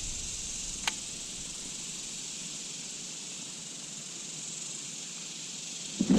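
Cicadas droning steadily in a high-pitched hiss, with a single sharp click about a second in.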